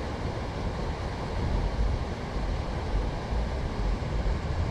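Wind buffeting the camera's microphone: a steady, uneven low rumble with a haze of noise over it.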